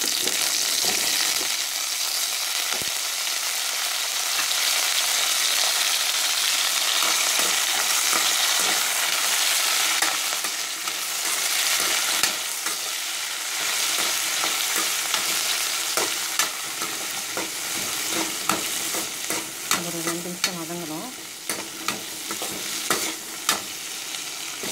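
Shallots and drumstick pieces sizzling in hot oil in a metal kadai while a slotted metal spatula stirs them, scraping and tapping against the pan. This is the sautéing stage of a sambar. The sizzle is steadiest and loudest in the first half. From about two-thirds of the way in, spatula clicks and taps stand out more.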